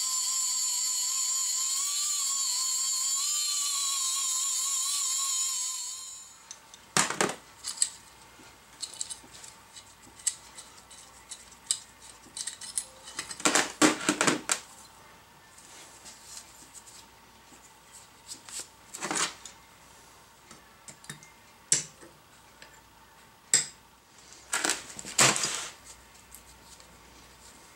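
Right-angle die grinder with a small abrasive disc whining steadily as it grinds mill scale off a steel plate, the bare metal being readied for TIG tack welding; it cuts off about six seconds in. After that come scattered metal clanks and clicks as steel parts are set in a welding jig and a locking C-clamp is closed on them.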